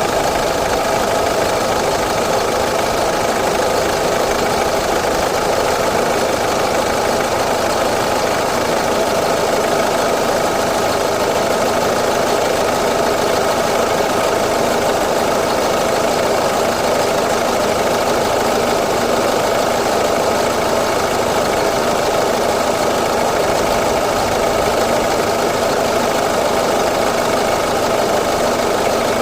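A Mini Cooper D's diesel engine idling steadily.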